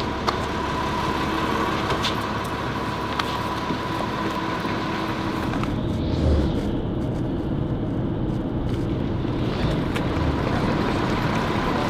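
Coach bus running, a steady drone of engine and road noise with a constant hum. The higher hiss fades out for a few seconds in the middle, then returns.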